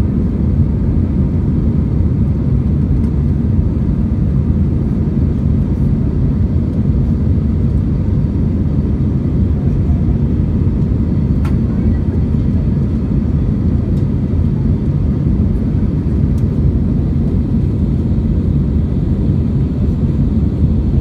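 Steady low roar of an Airbus A319's jet engines and rushing air, heard from inside the passenger cabin.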